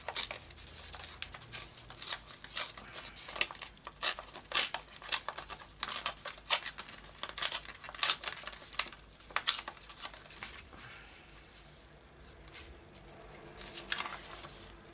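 Scissors snipping through a sheet of dyed paper in a quick, irregular run of cuts, easing off about ten seconds in, with a few more snips near the end.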